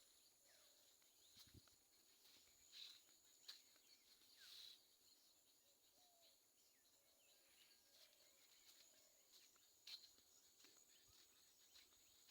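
Faint, distant forest birdsong: scattered short chirps and calls, several clustered between about three and five seconds in, including one falling call, and another near ten seconds, over a faint steady high hum.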